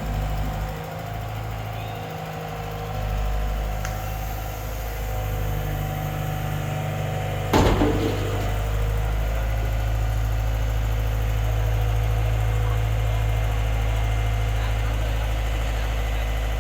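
Heavy machine's engine running steadily at idle during scrap loading, with a single loud bang about seven and a half seconds in, typical of scrap metal being dropped.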